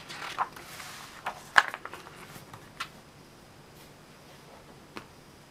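A page of a paper catalogue being turned by hand: a rustle of paper, then a few crisp crackles and taps as the page is laid flat, the loudest about a second and a half in.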